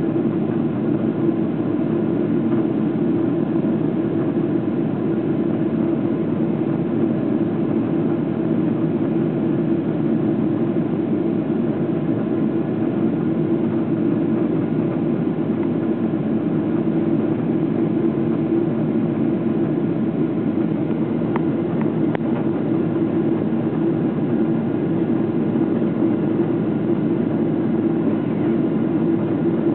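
Steady engine and airflow noise heard inside the cabin of a Boeing 777-200LR climbing after takeoff, its GE90 turbofans at climb thrust: an even, deep rushing drone that does not change.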